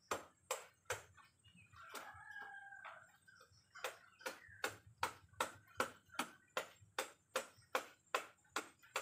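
Repeated sharp knocks of a cleaver blade chopping at a hand-held coconut, about two to three strikes a second. The strikes pause briefly after the first second, while a short pitched call, like a chicken's, is heard, then resume at a steady pace.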